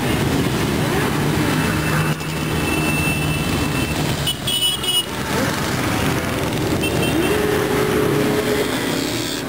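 A column of motorcycles and scooters riding past one after another at low speed, several engines running at once at different pitches. One engine revs up a little after the middle, and another holds a steady note near the end.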